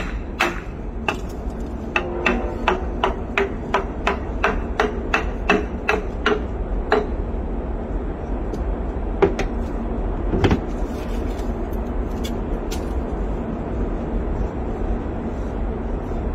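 Hammer blows driving a dry-ice-chilled cylinder sleeve into the bore of a Massey Ferguson tractor engine block. A quick run of strikes, about three a second, lasts several seconds, then two single heavier blows follow.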